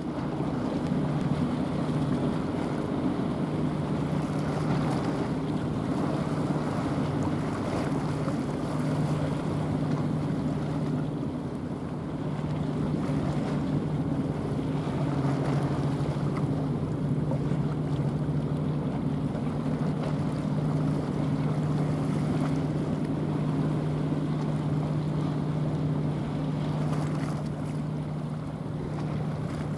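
Small chemical tanker's diesel engine running with a steady low drone, over the rushing of its bow wave through the water and wind on the microphone.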